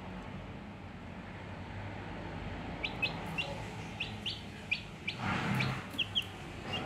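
Day-old Brahma-cross chick peeping: a run of short, high, rising peeps that starts about three seconds in. A brief scuffling noise comes about five seconds in.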